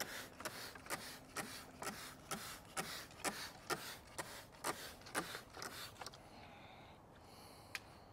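Hand trigger spray bottle squirting repeatedly, about two short hissing sprays a second. The spraying stops about six seconds in, followed later by a single click.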